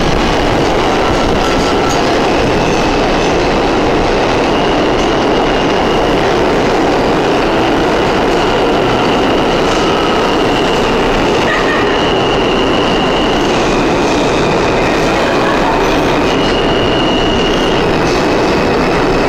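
R160 subway train entering an underground station and running along the platform as it slows, a loud steady rumble of wheels on rail. High squealing tones sit over it and shift in pitch now and then.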